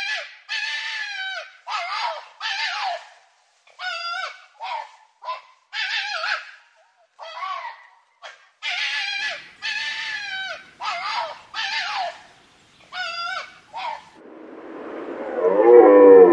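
A wild animal calling over and over in short, harsh calls that fall in pitch, in irregular runs of two to four. About two seconds before the end a different, louder animal sound with a rising pitch takes over.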